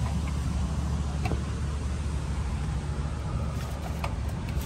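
Steady low outdoor rumble, with a few light clicks of a screwdriver working at a scroll compressor's terminal plug.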